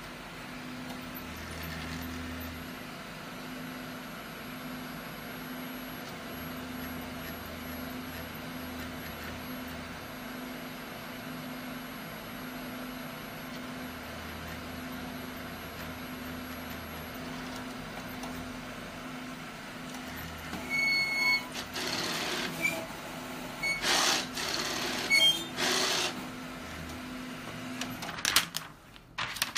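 Large-format inkjet printer printing a nozzle check pattern after printhead work, its carriage and feed motors running with a steady pulsing hum. Near the end, a run of louder sharp clacks.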